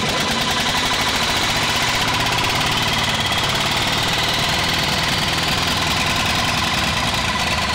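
5.9 Cummins 12-valve inline-six diesel running steadily just after catching, a fast, even diesel clatter that sounds like a tractor, with a faint steady whine above it.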